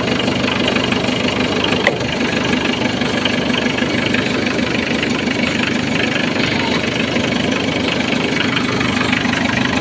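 Car engine idling steadily under the open hood, with a single short click about two seconds in.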